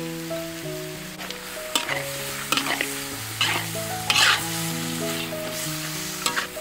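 Metal spatula stirring and scraping chicken and seasonings around a wok as it sizzles, with scattered scrapes and clinks of metal on the pan; the loudest scrape comes about four seconds in. A gentle background melody of held notes runs underneath.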